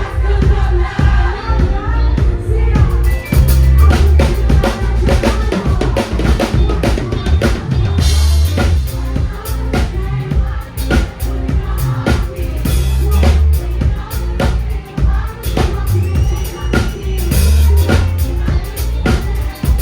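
Band music with a full drum kit playing busy snare, rimshot and kick hits over a heavy bass guitar line.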